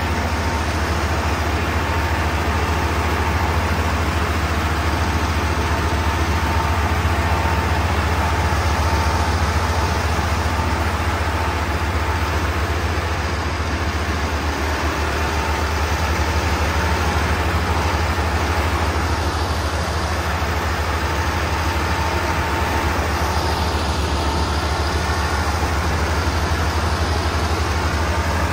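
Massey Ferguson 385 tractors' diesel engines running steadily under heavy load while hauling a loaded sugarcane trolley through sand.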